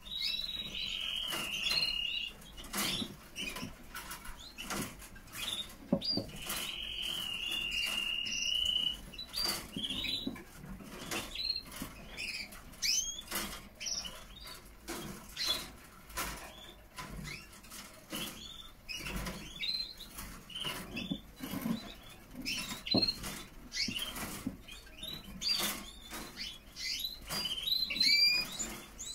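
Canaries chirping, with a held high whistle-like tone at the start and again about seven seconds in, and short rising chirps growing busier near the end, over frequent light clicks and rustles.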